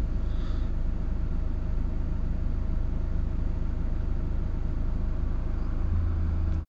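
Steady low rumble with a light hiss, with no clicks or knocks standing out. It cuts off suddenly at the end.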